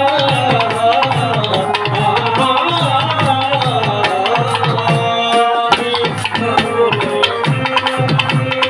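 Live folk-song accompaniment: a hand-played two-headed barrel drum and a second drum beating a fast, steady rhythm under a wavering melody line, with a brief held chord about five seconds in.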